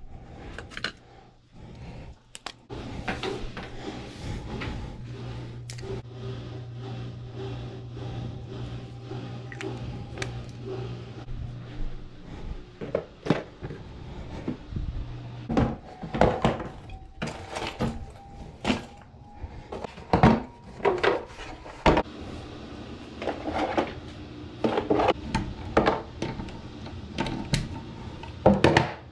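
Household handling noises: objects being picked up, moved and set down, with repeated knocks, thunks and clatters. Near the end a hard plastic rotary-tool case and its charger are being handled. A steady low hum runs under the first half.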